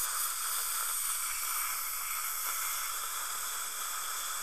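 Dental air-water syringe spraying water onto the tooth while a suction tip draws it away, a steady hiss; the phosphoric-acid etch is being rinsed off.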